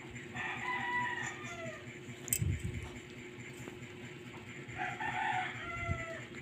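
A rooster crowing twice, each crow about a second and a half long and dropping in pitch at the end. There is a short click between the two crows.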